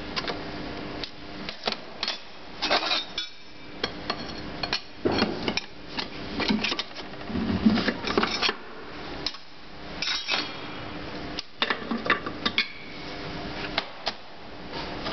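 Irregular metallic clinks and knocks of hand tools and metal parts being handled, with a faint steady hum underneath.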